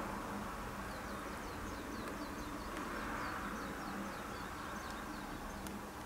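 A bird calling a rapid run of short, high, falling chirps, about four a second, starting about a second in and stopping shortly before the end, over a steady outdoor background hum.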